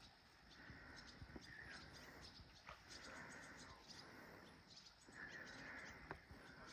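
Near silence: faint outdoor ambience, with a soft hiss that swells and fades every couple of seconds and a few faint clicks.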